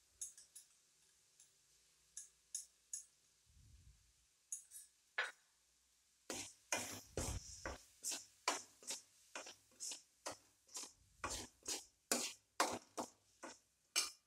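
Metal spoon scraping and tapping against a metal kadai while stirring sautéed vegetables. A few scattered light clicks come first, then from about halfway a steady run of strokes, about two to three a second.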